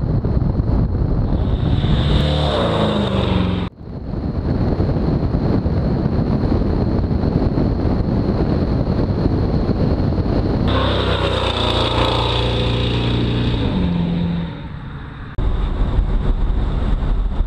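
A 1985 Chevy C10 pickup's engine pulling the truck down the road, its pitch climbing twice as it accelerates, over wind and tyre noise. The sound breaks off abruptly a couple of times.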